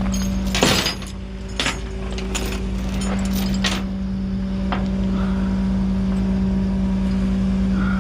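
A vehicle engine running steadily with a constant droning hum, while several sharp metallic clanks and knocks sound in the first half, the loudest under a second in.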